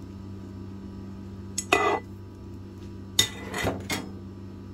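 Metal utensil clinking and clattering against a cooking pot as fried potato slices are laid on the rice: one short clatter a little under two seconds in, then a quick run of several clinks a bit past three seconds in, over a low steady hum.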